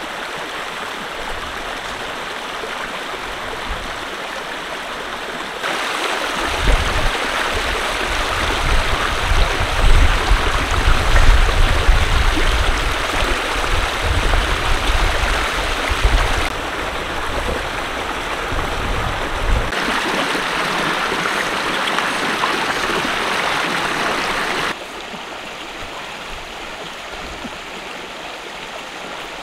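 Shallow rocky stream rushing over stones: a steady noise of flowing water. It grows louder with a low rumble added about six seconds in, then drops back in steps near the end.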